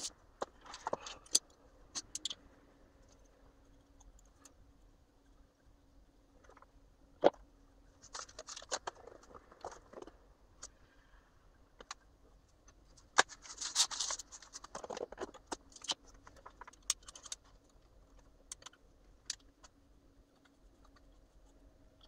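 3D-printed plastic parts being handled on a workbench: scattered sharp clicks and knocks as pieces are picked up and set down, with short stretches of scraping and rattling, the loudest clicks about seven and thirteen seconds in.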